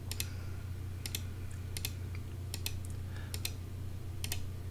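Clicking at a computer: about seven single clicks at irregular intervals, many with a quick double snap, over a steady low hum.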